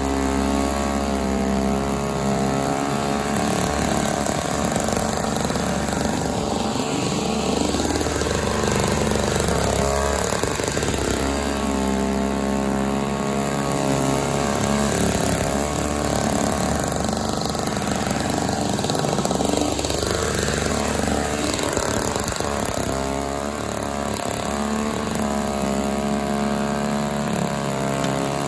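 Tecumseh 3.5 HP two-stroke engine of an MTD Yard Machines 21-inch single-stage snowblower running steadily while it clears powder snow, its engine note dipping and wavering briefly a few times as it takes on snow.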